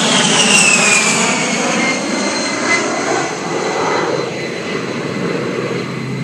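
Low-flying military jet passing overhead: its high engine whine drops sharply in pitch over the first two seconds as it goes by, over a broad jet rush that slowly fades as it flies away.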